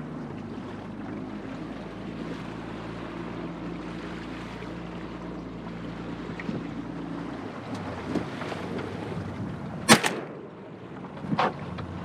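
A boat's motor running steadily under wind noise, its low hum dropping away about seven seconds in. Near the end a single sharp, loud bang, followed shortly by two smaller knocks.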